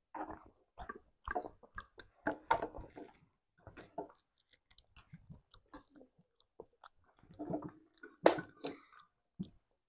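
Children chewing noodles close to the microphone, with irregular wet mouth clicks and smacks, and a single sharp knock a little after eight seconds in.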